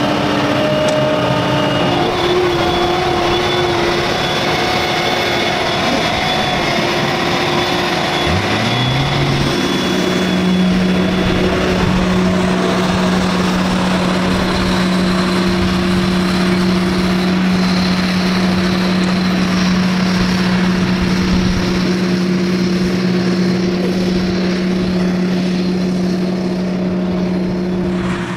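Diesel engine of a John Deere self-propelled forage harvester running steadily under load; about eight seconds in its pitch climbs and it then holds at higher revs.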